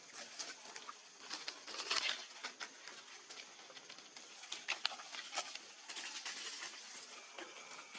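Monkeys moving about and handling food: scattered light taps, clicks and rustles, with a louder scuffle about two seconds in.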